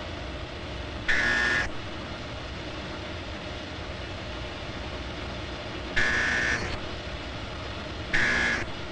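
Signal bell rung in short bursts of about half a second: once about a second in, then twice near the end. Each ring tells the smoke school trainees to record their next smoke reading. A steady hiss runs underneath.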